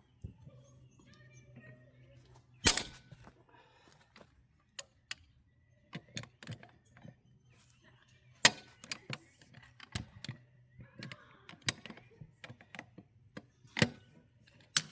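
Sharp metallic clicks and clanks of a breaker bar, extension and socket working on tractor lug nuts as they are broken loose, with three louder bangs spread through.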